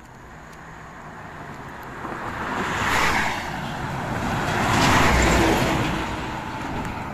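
Road traffic passing close by on a highway: two vehicles go past in turn, one about three seconds in and a louder one about five seconds in, each swelling and fading as a rush of tyre and engine noise. The louder pass is a flatbed truck, with a deep rumble.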